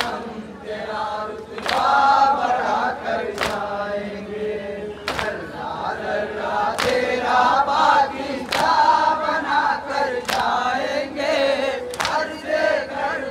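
Crowd of men chanting a noha together, with a sharp, unison smack of open hands on bare chests (matam) every second and a half to two seconds, seven times.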